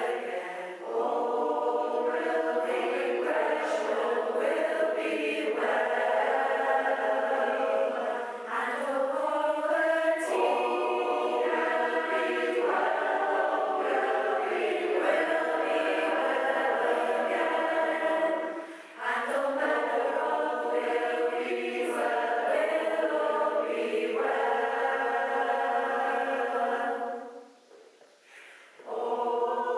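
Large mixed choir singing, in long sustained phrases with short breaks between them and a pause of about two seconds near the end before the singing starts again.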